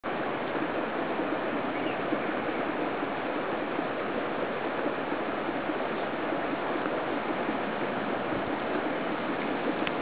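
Strong wind rushing through tall grass: a steady, even rushing noise.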